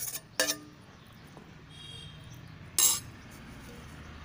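A steel spoon clinking against a steel plate and a ceramic bowl as cut lemon pieces are scraped into the bowl: a ringing clink about half a second in and a sharper, louder one just before three seconds.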